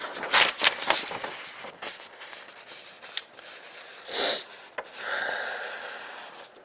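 Rubbing and scraping handling noises from items being moved on a table: several quick scrapes in the first two seconds, a short breathy burst about four seconds in, and a longer rub near the end.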